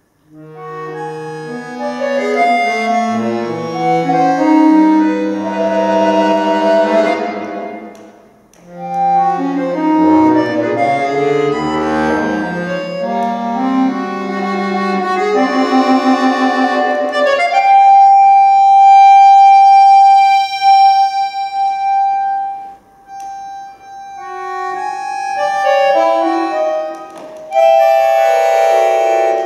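Solo accordion playing dense, shifting chord clusters that swell and break off about eight seconds in, then start again. Later a single high note is held for about five seconds, and the chords return near the end.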